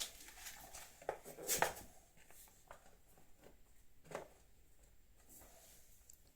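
A few light clicks and knocks of plastic headlight parts being handled, the loudest about one and a half seconds in and another about four seconds in, over quiet room tone.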